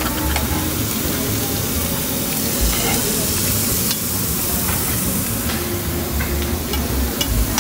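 Meat and shrimp sizzling on a tabletop barbecue grill: a steady frying hiss, with a few short clicks.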